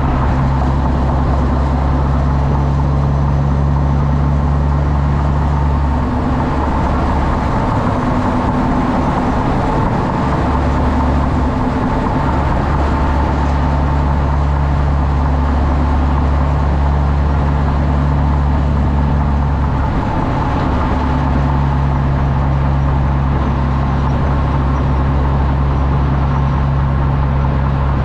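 Heavy diesel trucks running on the road with a steady, loud low drone. The drone changes about six to ten seconds in and again about twenty seconds in.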